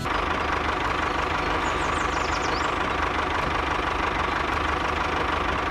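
Small engine running steadily at an even speed, with a faint steady whine over a low hum.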